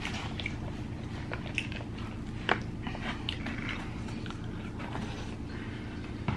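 Eating sounds: chewing, with scattered small clicks and taps of a metal fork in a foil pan of chicken Alfredo pasta, one sharper click about two and a half seconds in, over a low steady hum.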